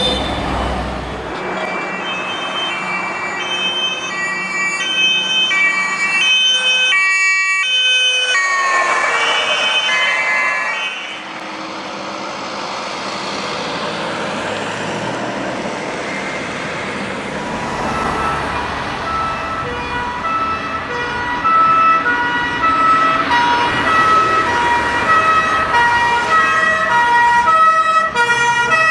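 German fire trucks' two-tone sirens (Martinshorn) alternating between two pitches about once a second, over the running engines and tyre noise of the passing vehicles. The tones bend down briefly about nine seconds in as one vehicle goes by.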